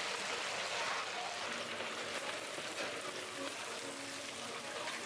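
Battered chicken pieces deep-frying in a large vat of hot oil, with a steady sizzle.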